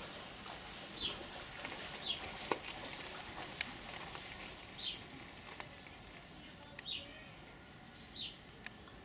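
A bird repeating a short, high chirp that falls in pitch, five times at uneven gaps of one to three seconds. A few sharp clicks sound in between, one louder than the rest.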